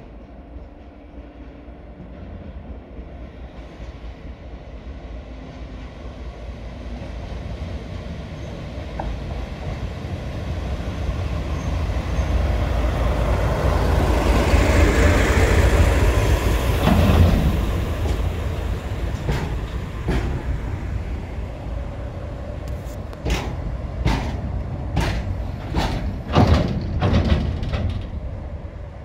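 DE10 diesel-hydraulic locomotive approaching and passing, its engine and wheels growing steadily louder to a peak about halfway through, then easing off. Over the last several seconds a series of short, sharp sounds comes as it slows to a stop.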